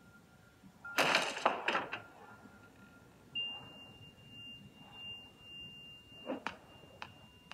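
Film trailer sound effects played from a TV: a quick cluster of sharp, loud impacts about a second in, then a faint thin high tone, and two more single hits near the end.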